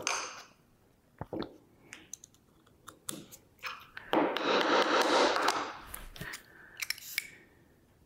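Small steel ball bearing being tapped and worked down an oiled 3/8-inch steel shaft with a screwdriver handle: a scatter of sharp taps and metal clicks, and a rough scraping stretch of about a second and a half near the middle. The bearing is a tight fit on the shaft.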